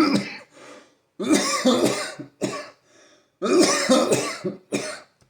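A man's coughing fit: a string of harsh coughs in groups, with short breaths between, part of a persistent cough.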